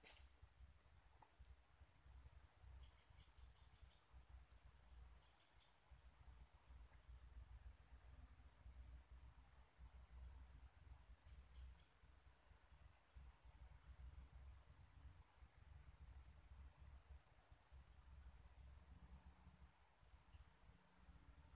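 A faint, steady, high-pitched insect chorus drones without a break. A few brief faint chirps come about three, five and twelve seconds in.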